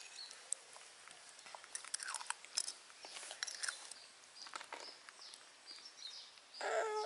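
Faint clicks and scrapes of a metal spoon in a small plastic dessert cup as baby monkeys eat from it, with soft lip-smacking and a few faint short chirps.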